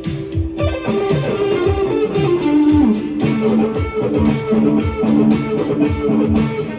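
Electric guitar played through a Friedman BE-OD Deluxe overdrive pedal, giving a driven tone on a sustained melody line with notes sliding down in pitch. It plays over a backing track whose low kick-drum thumps fall about twice a second.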